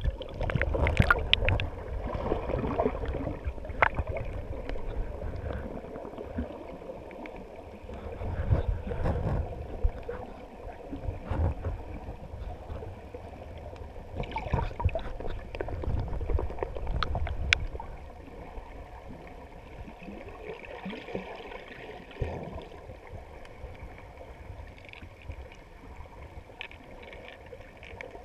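Muffled water sounds heard through a camera under water: sloshing and gurgling around the housing with scattered clicks and knocks, louder and busier for the first two-thirds, then settling to a lower wash.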